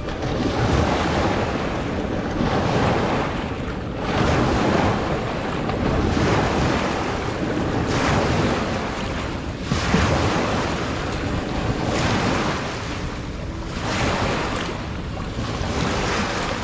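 Small waves washing in and breaking on shoreline rocks, the rush of water surging and easing about every two seconds.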